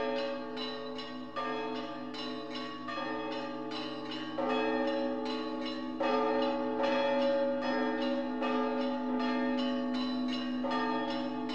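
Church bells change ringing: an even run of bell strikes, about four a second, each bell ringing on under the next.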